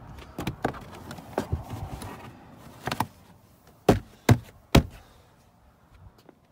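WeatherTech molded rubber car floor mat being worked into place in the footwell. Scraping and rustling for the first couple of seconds, then a series of sharp knocks and taps, three close together about four seconds in, as the mat is pressed down by hand.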